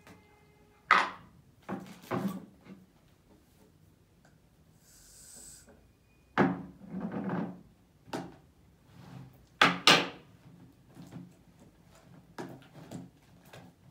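Table-top knocks and clatters as containers and a spoon are handled and set down, with a short hiss about five seconds in as shaving foam is sprayed from an aerosol can. After that, a spoon knocks and scrapes against a plastic tub.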